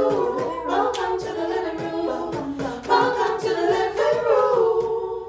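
An a cappella vocal group singing the show's intro jingle in layered harmony over a steady low beat. It dies away at the very end.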